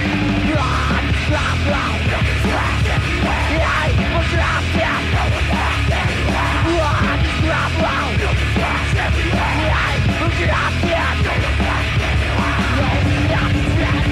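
Live death metal played by a full band, loud and dense, with harsh yelled vocals over it from shortly after the start until near the end.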